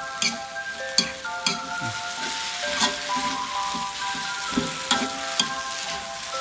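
Pork and wide rice noodles (pad see ew) sizzling in a wok as they are tossed with a metal spatula that clinks and scrapes against the pan several times, during the dish's final toss.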